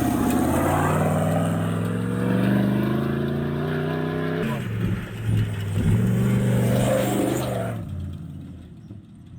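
An off-road UTV engine revving under load. The revs climb steadily for about four seconds, drop off suddenly, climb again, then fade away near the end.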